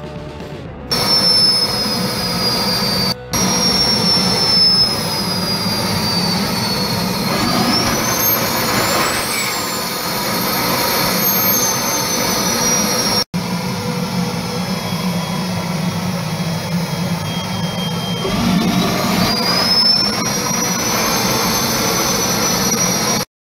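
Homemade turbojet engine built from a turbocharger, running with a steady roar and a high turbine whine. The whine sinks slowly, then climbs as the engine spools up about 8 s in, and again about 18 s in. Short slideshow music at the very start.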